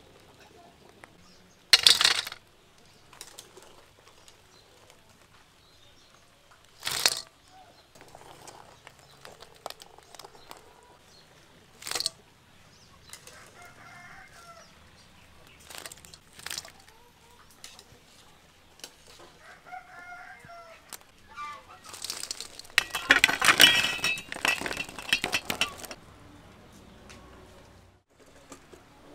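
Quail eggs tipped out of a stainless-steel colander onto a metal tray, clattering for about three seconds near the end. Before that come a few separate sharp knocks, and chickens cluck faintly in the background a couple of times.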